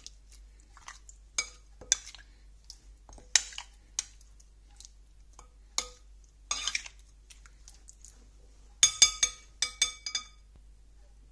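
Metal spoon clinking and scraping against a glass mixing bowl while stirring chicken pieces in a wet marinade. Scattered sharp clinks, a short scrape about six and a half seconds in, and a quick run of ringing clinks near the end.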